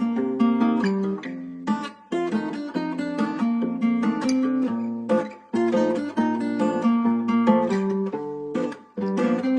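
Background music: a strummed acoustic guitar playing chords with clear note changes.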